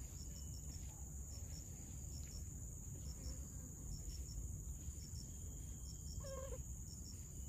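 Tropical forest ambience: insects keep up a steady high buzz with repeated short paired chirps over a low rumble, and one short wavering call sounds about six seconds in.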